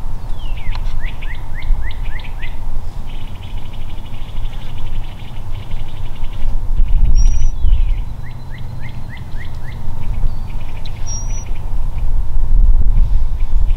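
A wild bird singing twice, each time a quick run of six or seven short downslurred notes, with a couple of brief high whistles between, over a loud, steady low rumble.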